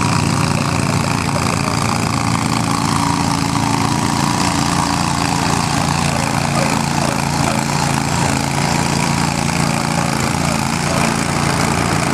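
Garden tractor engine running steadily under load while pulling a weighted sled, with no big changes in revs.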